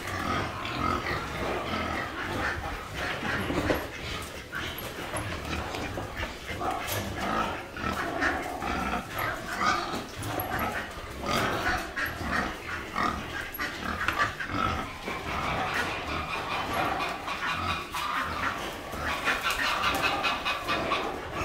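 Pigs grunting and chewing as they feed on sprouted barley fodder, with many short crunching clicks. A louder, higher-pitched call comes in near the end.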